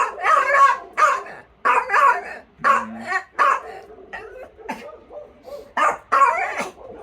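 A dog making odd barking and yipping calls: short separate calls, roughly one to two a second.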